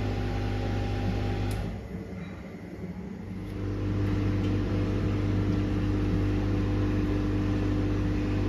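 Washing machine running a cottons 40 °C wash: its motor hums steadily, stops about a second and a half in, then starts up again with a steady hum a couple of seconds later.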